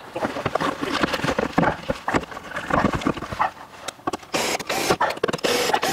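A wooden target board knocking and scraping as it is handled and set against the backstop, then a cordless drill running in two short bursts against the board near the end.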